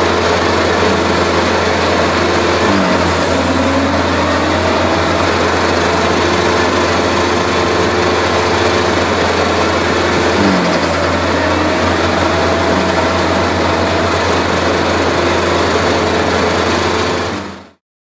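An Art's Way Top-Spread bale spreader and the engine powering it run steadily under load, shredding a round bale and throwing hay, with a constant low hum. Twice a tone briefly falls in pitch. The sound cuts off suddenly near the end.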